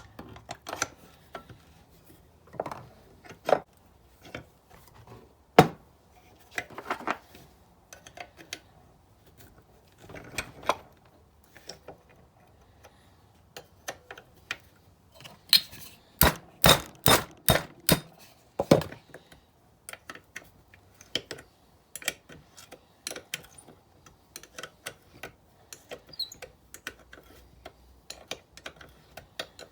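Metal hand tools clinking and tapping on a steel brake caliper held in a vise, working a frozen slide pin loose: scattered knocks, a quick run of about five sharp strikes in the middle, then a long string of light, fairly even ticks.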